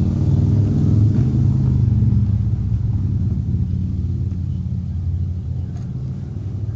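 Steady low mechanical hum made of several even pitched tones, like a motor or engine running, slowly getting a little quieter.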